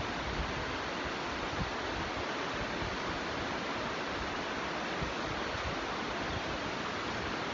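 Steady rushing of muddy floodwater surging down a street.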